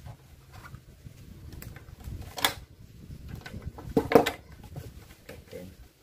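Pliers cutting and working insulated electrical wire: two sharp snips, about two and a half seconds in and again about four seconds in, the second louder, over light handling rustle.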